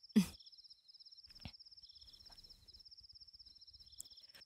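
Crickets trilling steadily in a fast, even pulse. Just after the start there is a brief low vocal sound, and there are two faint clicks later on.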